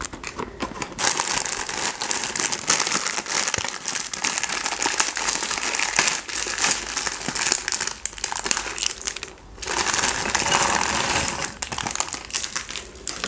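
Clear plastic inner bag of cereal crinkling continuously as it is pulled from the box, opened and emptied into a bowl of milk, with a brief lull about nine and a half seconds in.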